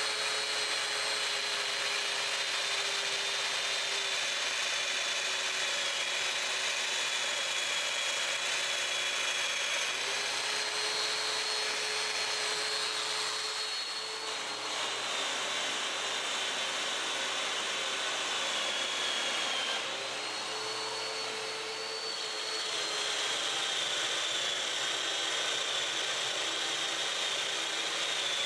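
Festool Domino joiner's motor running with a steady high whine, plunging mortises into walnut boards; its pitch sags and then picks back up several times as it cuts, with its dust extractor running along.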